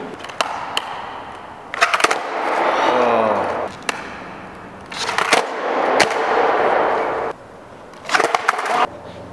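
Skateboard fitted with three sideways trucks clacking on a concrete floor: several sharp pops and landings in clusters, with the wheels rolling in between. Voices call out briefly in the middle.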